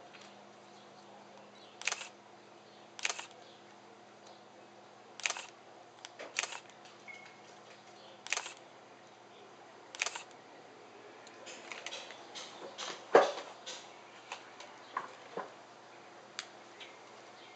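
Irregular sharp clicks and light knocks over a faint steady background hiss, about a dozen in all, bunched more closely in the second half, with the loudest about two-thirds of the way through.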